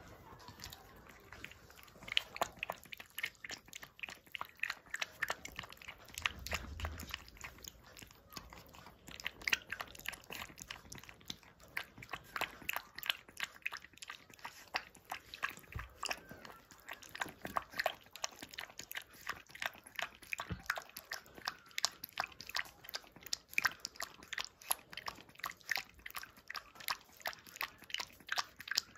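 A month-old puppy lapping milk from a small steel bowl: quick wet laps, several a second, beginning about two seconds in.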